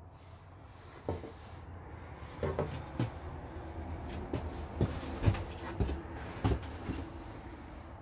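A series of light, irregular knocks and clatters, about a dozen, in a small hard-walled room, with a faint rubbing sound in the middle.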